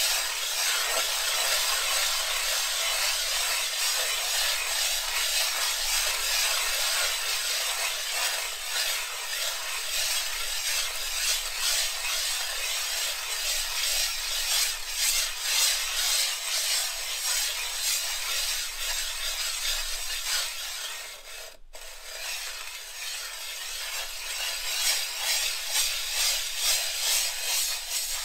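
Glass muller grinding coarse genuine azurite pigment into watercolour paste on a slab: a gritty scraping that swells and fades with each circular stroke, with a brief drop about three quarters of the way through. This is the grinding of the coarse azurite grain down to a finer pigment.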